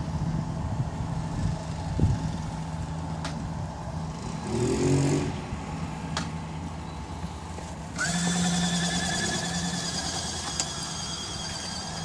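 Electric motors of a robot cooler running with a steady low hum, a single knock about two seconds in, and a higher whine joining about eight seconds in.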